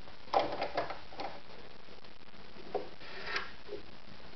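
Handling noise on a plastic sewing machine: a quick run of light clicks and knocks about half a second in, and a few more near three seconds in. The machine is not running.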